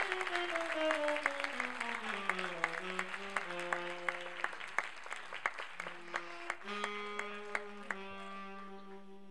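A sustained, droning musical tone with overtones slides slowly down in pitch over about three seconds, then settles into held low notes that shift a few times. Scattered sharp clicks sound over it and thin out toward the end.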